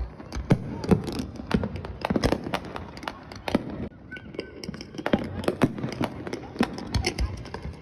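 Fireworks going off in a dense, irregular run of sharp bangs and crackles, several a second, with people's voices underneath.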